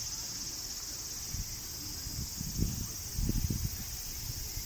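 A steady, high-pitched chorus of crickets, with irregular low rumbles of wind buffeting the microphone, strongest about two and a half to three and a half seconds in.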